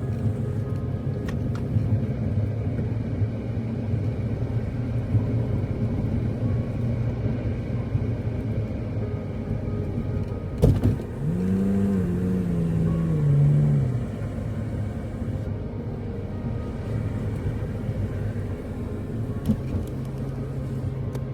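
Car running steadily, with a low drone of engine and road noise. A sharp knock comes about eleven seconds in, followed by a pitched sound for about three seconds that rises and then falls.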